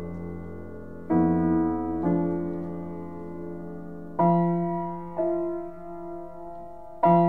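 Solo piano improvising slow, sustained chords: five chords struck in pairs about a second apart, each left to ring and fade before the next.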